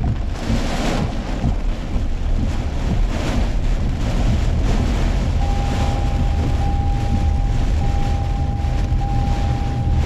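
Typhoon wind and heavy rain battering a moving car: a loud, steady low rumble of wind on the microphone, with gusts that swell and fade. About halfway through, a steady electronic beep starts, broken briefly about once a second.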